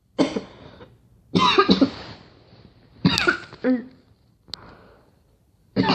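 A girl coughing in four separate fits, some with two or three coughs run together, with short pauses between them.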